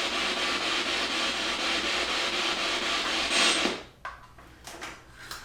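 Spirit box sweeping through radio stations: a steady hiss of radio static that stops abruptly about three and a half seconds in, followed by a few faint clicks.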